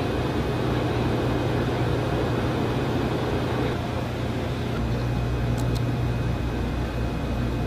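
Steady low electrical hum with an even rush of air-handling and equipment noise from the consoles and ventilation of a missile launch control room, unchanging throughout.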